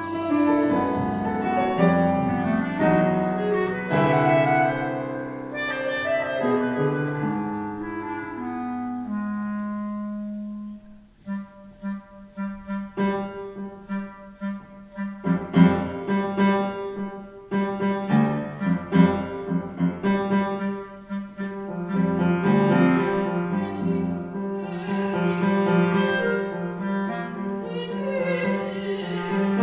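Clarinet and piano playing contemporary classical chamber music. A long held low note fades out about ten seconds in, then comes a stretch of short detached notes before longer notes return.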